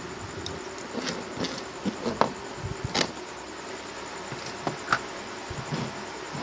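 A steady buzzing hum runs under scattered light clicks and taps from small tools and parts being handled on a phone-repair bench; the sharpest clicks come about three and five seconds in.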